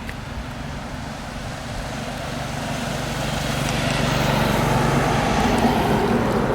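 A motor vehicle's engine, running steadily and growing louder over several seconds, then easing off near the end, as it passes by.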